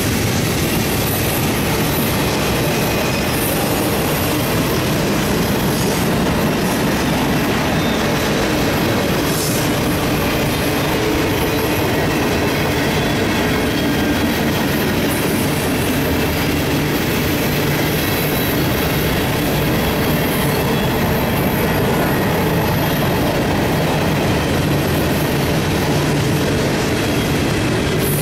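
A long freight train of tank cars, boxcars and covered hoppers rolling past at steady speed, its steel wheels clacking over rail joints, with high wheel squeal now and then.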